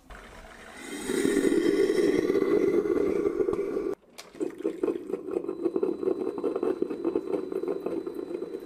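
Ninja Hot and Cold Brewed System coffee maker starting a brew cycle, running with a loud, steady mechanical hum. The hum drops out for an instant about four seconds in, then resumes with a slight pulsing.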